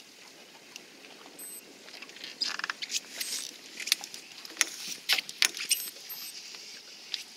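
Baitcasting reel being cranked while a fish is reeled in on a bent rod: irregular clicks and rattles of the reel and tackle, growing busier about two seconds in.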